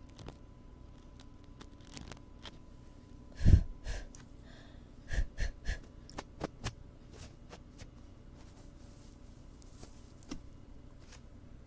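Close-miked ASMR ear-cleaning sounds on a binaural microphone: scattered soft clicks and scratches, a louder thump about three and a half seconds in, and three quick pulses about five seconds in.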